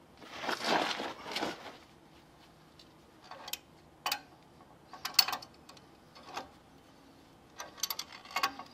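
Steel threaded rod, nut and channel-iron puller being handled while a 15/16 nut is threaded on by hand: a scraping rustle for the first second and a half, then a few separate sharp metal clinks.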